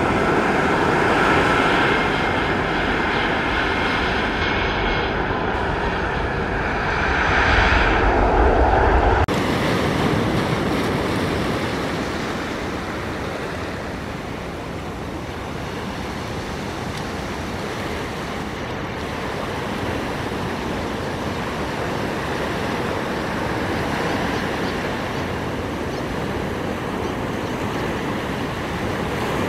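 Airbus A330 airliner passing low on final approach, its jet engines running with a steady high whine and growing louder with a deep low rumble as it goes overhead about eight seconds in. It cuts off abruptly, and an even, quieter rush of surf and wind follows.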